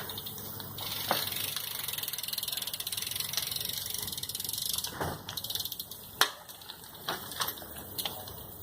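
BMX bike's rear hub ratcheting in a fast, even run of clicks as the wheel coasts for about four seconds, followed by several separate sharp knocks, the loudest about six seconds in.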